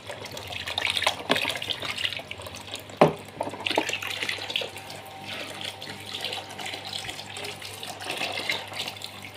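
A thin stream of water pouring into a plastic tub, with splashing as a snakehead moves in the water. There is a sharp knock about three seconds in.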